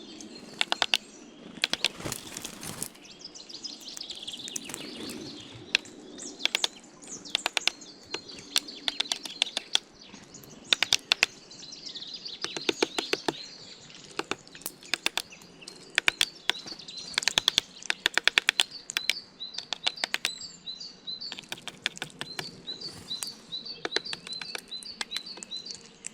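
Birds at a feeder pecking and cracking seed: sharp taps coming in quick runs throughout, mixed with chirping calls and, in the second half, a run of short repeated high notes.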